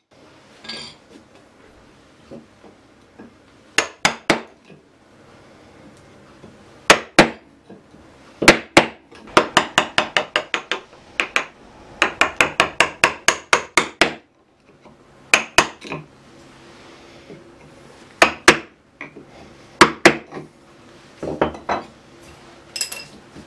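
Mallet blows on a chisel chopping waste out of a hinge joint in maple. Sharp single strikes and pairs at first, then a fast run of about four strikes a second in the middle, then scattered strikes again.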